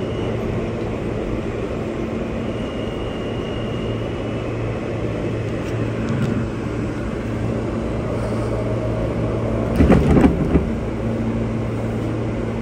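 Alstom R160A subway train running through a tunnel, heard from inside the car: a steady rumble of wheels on rail with a low hum. About ten seconds in, a brief loud burst of clattering.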